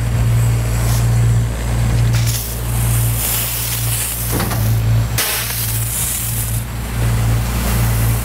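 Steady low engine hum of a truck-mounted sealcoat spray rig running, with the hiss of a hand spray wand jetting liquid under pump pressure. The hiss starts about two seconds in and comes and goes in surges.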